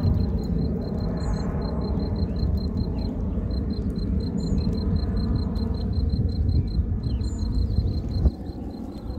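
A steady low rumble that drops off abruptly about eight seconds in, with a cricket chirping evenly underneath at about five chirps a second.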